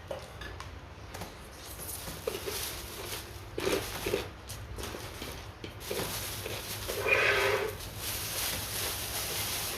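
A person eating close to the microphone: soft chewing and mouth sounds with small clicks, and a short 'mmm' hum of enjoyment a little after seven seconds.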